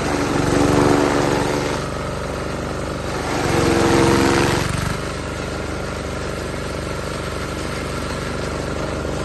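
Engine-driven hay cutter running steadily with a fast low pulsing, rising twice into a louder, higher-pitched passage, about a second in and again around four seconds.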